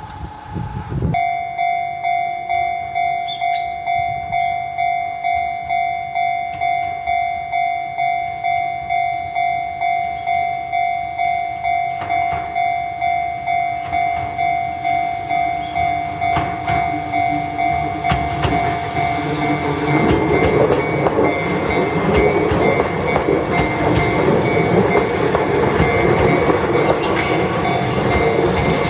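Japanese level-crossing alarm ringing its electronic bell tone about twice a second. From about 18 s in, an Enoshima Electric Railway train (1000 and 2000 series cars coupled) passes over the crossing, its wheels clattering over the rail joints and drowning out the bell.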